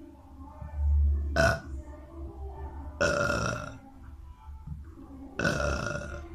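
A boy burping: three separate belches, about a second and a half in, three seconds in and near the end.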